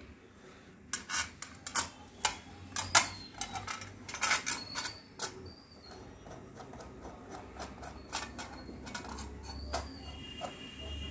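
Irregular sharp clicks and light clattering, as of small hard objects being handled, with a few short high squeaks in between.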